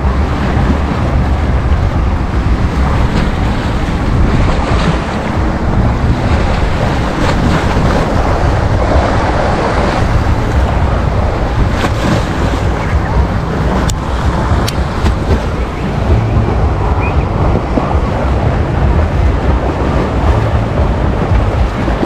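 Small sea waves breaking and washing up onto a sandy shore, a steady surf wash, with wind rumbling on the microphone.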